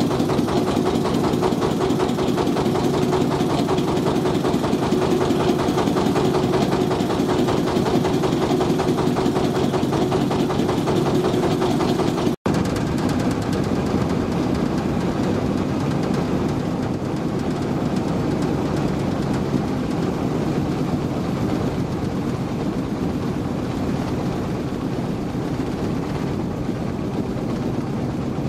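Engine running steadily. A split-second dropout comes about twelve seconds in, and after it the sound is rougher and noisier.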